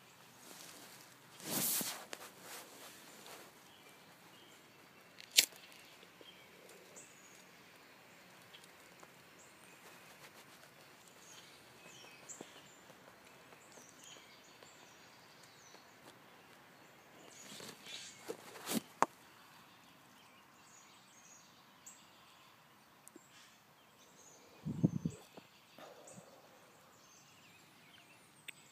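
Quiet woodland background with faint scattered bird chirps, broken a few times by short sharp clicks and brief breathy or rustling noises.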